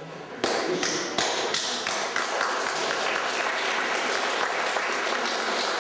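Audience applauding. The clapping starts suddenly about half a second in and carries on steadily.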